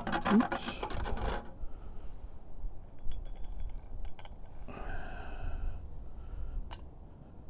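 Metal camp cookware clinking and scraping: a rush of scraping in the first second or so, then a few ringing metallic clinks around three to four seconds in and a single sharp click near the end.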